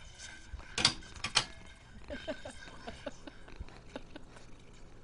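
Two sharp knocks about half a second apart, about a second in, followed by fainter scattered taps and light clatter.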